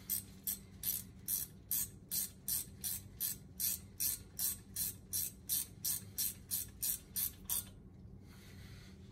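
A 12 mm ratcheting wrench clicking in an even rhythm, about three clicks a second, as a brake caliper's guide-pin bolt is run in. The clicking stops shortly before the end.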